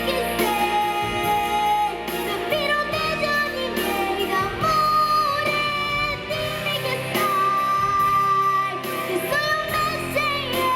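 Music: a pop song with a female voice singing long held notes over full instrumental backing.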